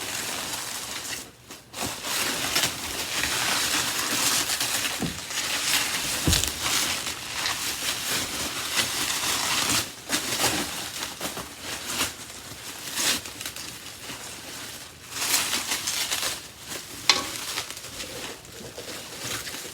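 Packing material rustling and crinkling in an uneven run with scattered clicks and knocks, as vacuum cleaner parts are pulled out of their wrapping.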